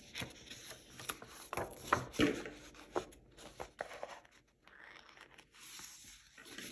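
Paper handling: scattered light taps and rubbing as a sticker is pressed onto a planner page, then a soft rustle near the end as a paper planner page is lifted and turned over.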